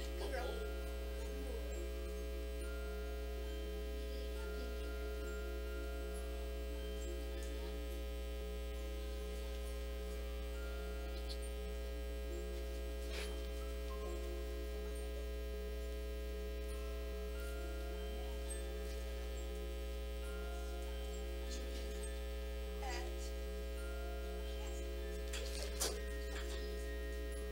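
Steady electrical mains hum with several steady tones, and a few faint clicks, the clearest near the end.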